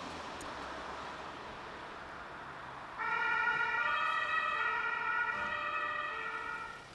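German emergency vehicle's two-tone siren (Martinshorn) switching on suddenly about three seconds in. It alternates between a lower and a higher pitch about every two-thirds of a second, then cuts off near the end. Before it there is only a steady background hum of street and engine noise.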